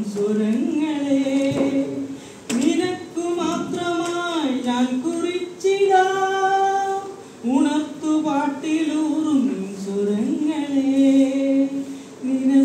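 A man singing a slow song unaccompanied into a corded handheld microphone, holding long notes and gliding between pitches, with short pauses for breath.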